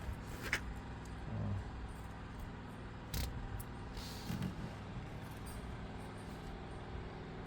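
Small clicks and handling noises as plastic T-tap wire connectors are fitted onto wiring, with a sharp click just after the start and another about three seconds in, over a steady low hum.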